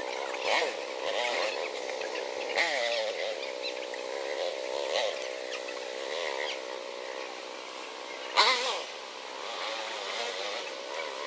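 Small dual-sport motorcycle engine running and being revved in short blips while the bike is pushed out of a muddy rut. The blips come several times, the sharpest and loudest about eight and a half seconds in.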